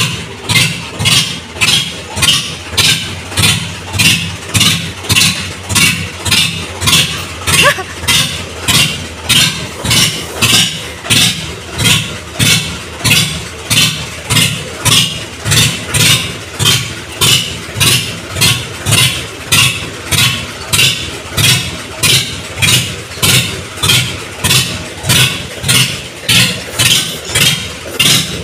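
Farm tractor's diesel engine running at idle, a steady pulsing beat about twice a second.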